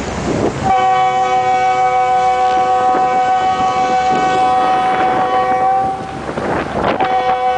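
Boat horn blowing a long, steady multi-note blast that starts under a second in and holds for about five seconds, breaks off briefly with a rush of wind and water noise, then sounds again near the end.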